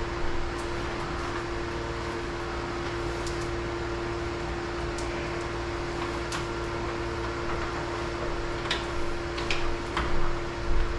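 Steady mechanical hum with one constant tone running through it, like a fan or similar machine running. A few light clicks and taps come near the end.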